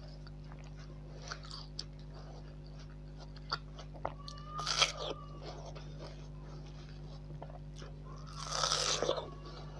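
Close-up eating sounds of a person biting and chewing watermelon: small wet clicks, one loud crunchy bite about halfway through and a longer crunch near the end, over a steady low hum.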